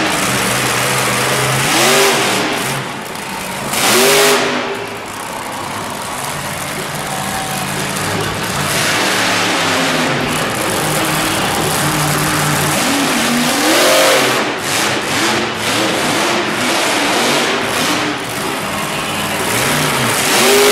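Monster truck engine revving again and again, its pitch climbing and falling, with the hardest revs about two seconds in, about four seconds in, around fourteen seconds and near the end.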